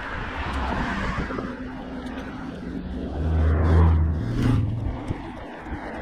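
A motor vehicle's engine hum swells about three seconds in, is loudest just before four seconds and fades, over a steady rushing noise.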